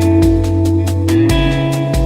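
Background music: guitar-led instrumental with a steady beat and a bass line changing chords.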